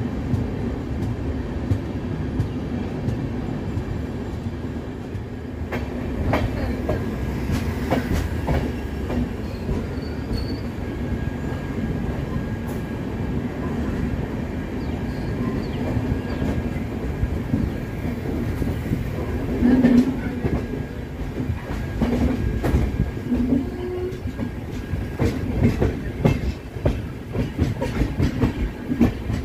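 Passenger train running, heard from a coach doorway: a steady rumble of the wheels on the rails, with sharp clacks over the rail joints that come in clusters and grow thicker near the end.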